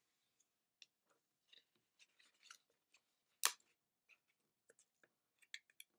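A square of paper being folded and creased by hand: faint, scattered rustles and crackles, with one louder crisp crackle about three and a half seconds in.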